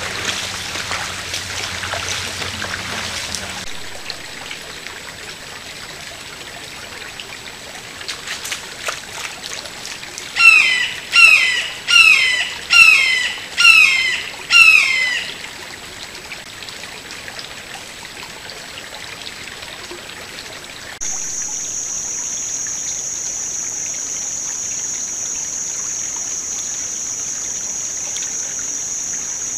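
Footsteps splashing through shallow flowing water for the first few seconds, then a quiet trickle of water. Around the middle a bird calls loudly six times, each call a falling note, a little under a second apart. In the last third a steady high-pitched buzz starts suddenly and holds.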